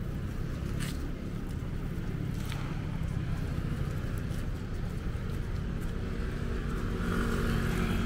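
Street traffic: a steady low rumble of cars running along the road, getting a little louder near the end.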